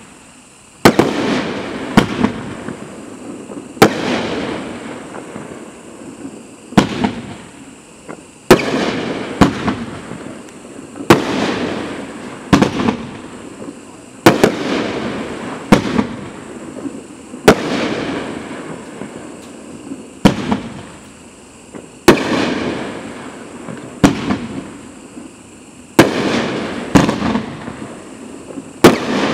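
Mad Ox Fanatic Fireworks 500 g 14-shot cake firing its shots in sequence: sharp bangs about every one to two seconds, each trailing off into a fading rumble.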